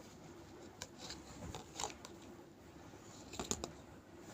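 Faint handling noises: a few soft clicks and rustles, the loudest a quick pair about three and a half seconds in.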